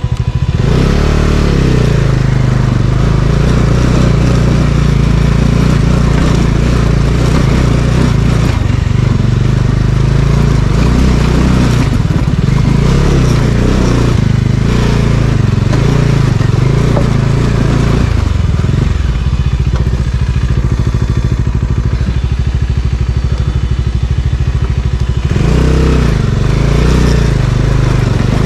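Motorcycle engine running under way, its pitch rising and falling a few times as the throttle is worked.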